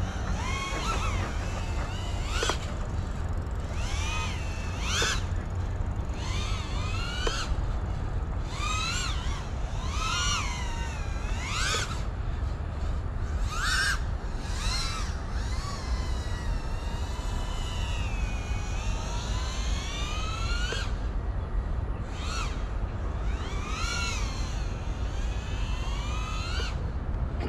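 FPV quadcopter's brushless motors whining in flight, the pitch rising and falling as the throttle is punched and eased, one swell every second or two, with a slower, longer climb in pitch around the middle. A steady low rumble lies under it.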